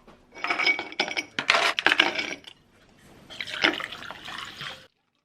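Liquid pouring and splashing in two spells, the first about two seconds long and the second about a second and a half, with a few light knocks. It cuts off suddenly near the end.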